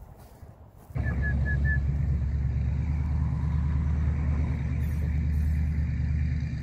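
A steady low rumble starts suddenly about a second in and holds at an even level, with four short high chirps just after it begins.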